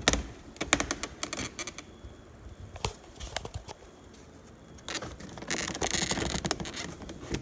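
Plastic trim clips of a 2006 Audi A3 rear door panel snapping loose as the panel is pried and pulled off. There is a string of sharp clicks and snaps in the first few seconds, then a longer scraping rustle of plastic near the end. The clips are releasing from the door frame, not breaking.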